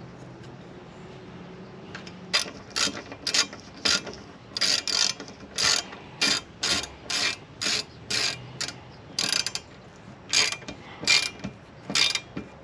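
Hand socket ratchet being worked back and forth to run down a fastener, its pawl clicking in about twenty short rasps that start about two seconds in.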